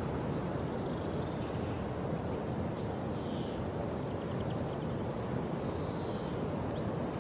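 Steady rushing wind noise on the microphone, with a few faint high chirps in the middle and near the end.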